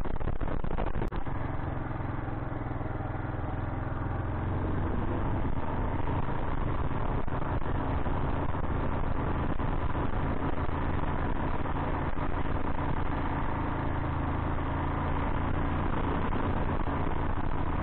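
Kawasaki KLR 685 single-cylinder motorcycle engine running with a steady, unchanging note, with a brief drop about a second in.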